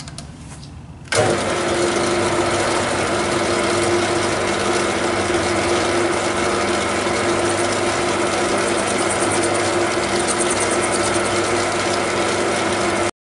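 Metal lathe switched on about a second in and running steadily, spinning a white acetal rod in its three-jaw chuck for a facing cut. The sound cuts off abruptly near the end.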